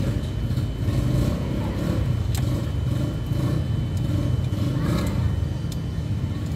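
Steady low mechanical hum, with a few short sharp clicks about two and a half, four and six seconds in.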